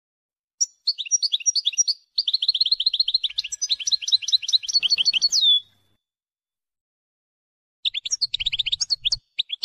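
European goldfinch song in the wdaniya style: fast runs of repeated high chirps. A long phrase with a brief break ends on a drawn-out note about five and a half seconds in, and a second phrase starts about two seconds later.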